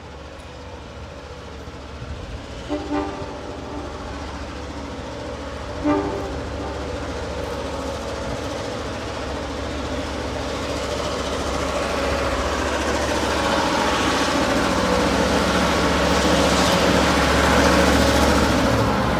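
Heritage diesel locomotive approaching: two short horn toots, about three and six seconds in, then its engine hum growing steadily louder as it draws near.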